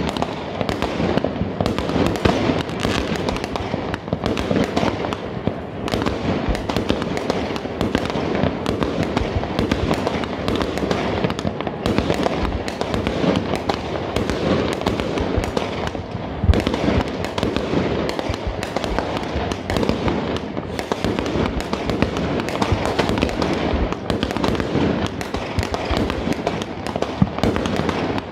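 Many fireworks going off at once in a continuous barrage: overlapping bangs and crackles with no real gaps, one louder bang about sixteen seconds in.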